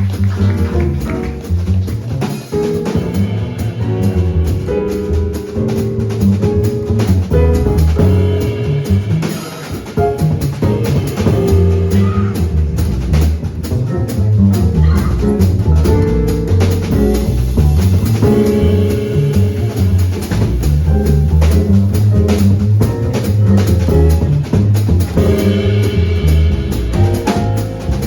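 Live small-group jazz with drum kit and double bass prominent and pitched piano or horn lines above them, playing steadily with no break.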